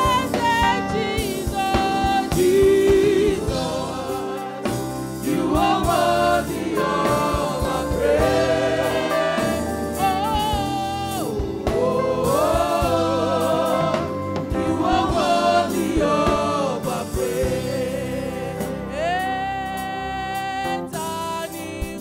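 Live gospel worship song: a woman sings lead, backing singers join in, and a band with a drum kit and cymbals plays.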